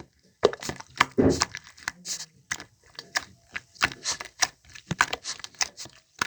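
Slime being squeezed and poked by hand, giving a quick irregular run of sticky clicks and pops, with a lower wet squish about a second in.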